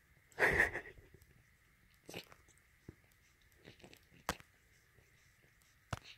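Quiet close-up rustling and handling noise: one short scuffle about half a second in, then a few scattered soft clicks.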